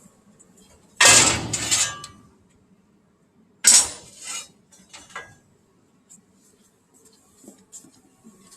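Metal pieces clattering and clanking: a loud clatter about a second in that dies away over about a second, a sharp clank a little later, then a few lighter clinks.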